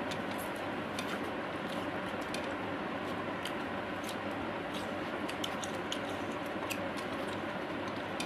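Close-up eating sounds: chewing and lip smacks as rice and curry are eaten by hand, heard as many small irregular clicks over a steady background hiss.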